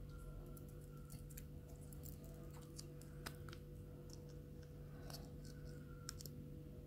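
Faint, scattered clicks and ticks from fingers handling a miniature plastic cup-noodle keychain and its metal ball chain.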